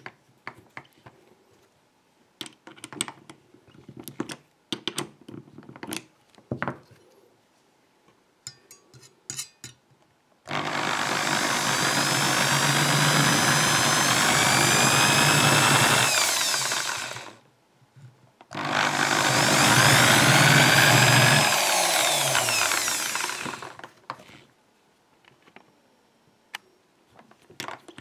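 Electric hand drill spinning a brass lock key pin in its chuck while a saw blade is held against it to cut serrations, in two runs of about six seconds each, each ending as the motor winds down with falling pitch. Before the first run come light clicks and taps of fitting the pin into the chuck.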